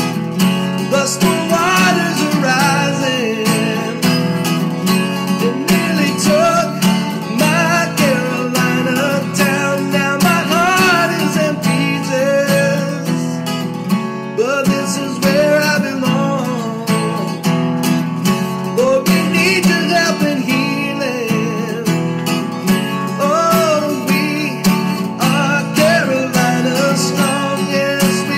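Instrumental break of a country song: acoustic guitar with a lead melody line bending up and down over a steady accompaniment.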